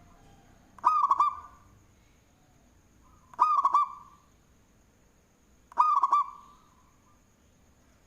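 Local zebra dove (perkutut) cooing in full song, with a big voice. It gives three short phrases of quick, bouncing coo notes about two and a half seconds apart.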